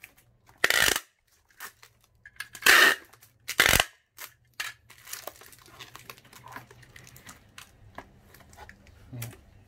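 Adhesive tape ripped off the roll three times, once about a second in and twice close together around three seconds, followed by quieter crinkling and rustling.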